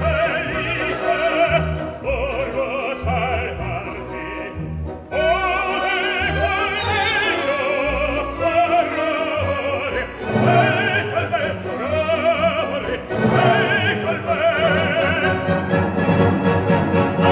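Operatic tenor singing sustained phrases with a wide vibrato over orchestral accompaniment, an example of the modern operatic style. The voice breaks off briefly about five seconds in, then starts a new phrase.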